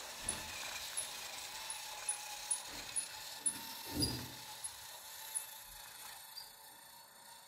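Motorized LEGO steam train running on plastic track: a light, regular mechanical ticking over a faint steady hiss. The ticks come further apart and the sound fades away as the train slows to a stop.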